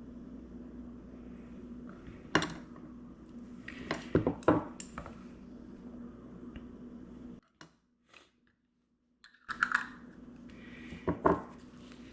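Kitchen utensils tapping and clicking lightly on a plate in scattered strokes over a steady low hum, with a break of about two seconds near the middle where the sound drops out.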